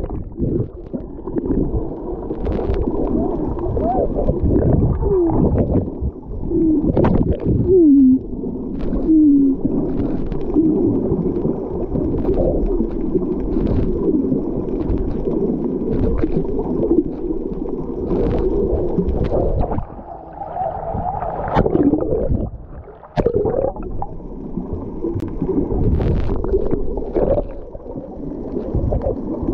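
Muffled underwater sound from a submerged camera: a steady low wash of water and bubbles against the housing, with scattered clicks. Short wavering whistle-like tones come through, mostly in the first third.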